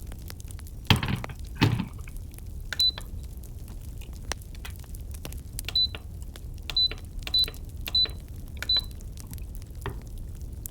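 Campfire crackling steadily, with two louder pops about a second in. Six short high-pitched beeps on one note sound over the fire after that.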